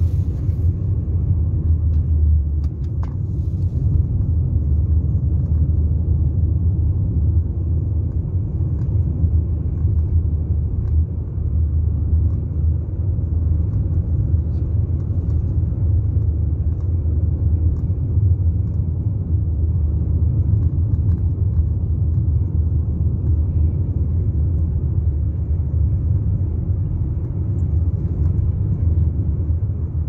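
Car driving, heard from inside the cabin: a steady low rumble of road and engine noise.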